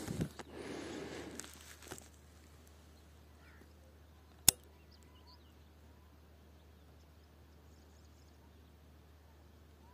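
Rustling and rubbing handling noise for about two seconds, then a quiet background with a few faint bird chirps. A single sharp, loud click comes about four and a half seconds in.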